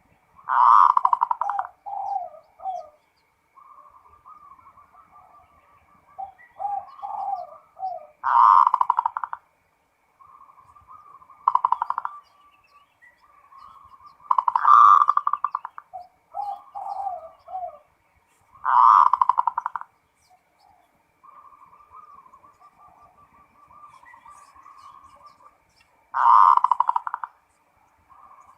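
Zebra dove (perkutut) cooing. Five loud rolling, rapidly pulsed coos of about a second each come several seconds apart, some followed by a few short lower coos, with softer warbling coos in between.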